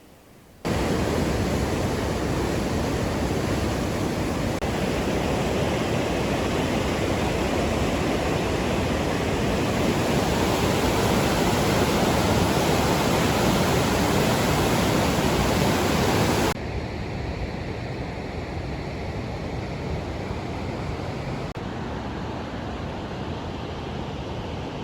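Loud, steady rush of water flowing through an old watermill's channel, starting abruptly under a second in. About 16 seconds in it drops suddenly to a quieter, duller rush that carries on.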